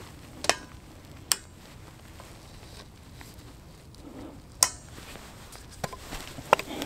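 Hunting gear being handled and packed up: a few sharp, separate clicks and light knocks, about four over several seconds, with faint scuffing between them.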